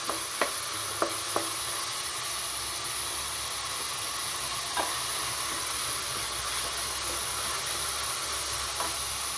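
Chopped vegetables sizzling over high heat in an aluminium pot as a wooden spatula stirs them, a steady frying hiss. A few short scrapes or knocks of the spatula against the pot stand out in the first second and a half and again about five seconds in.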